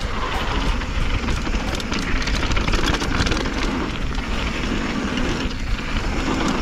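Mountain bike descending a dry dirt trail at speed: tyres rolling over loose gravel and the bike rattling in many small clicks, under steady wind rumble on the microphone.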